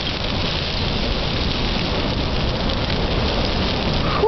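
A tree torching: fire burning up through its branches and crown, a steady, dense rushing noise with faint scattered crackles.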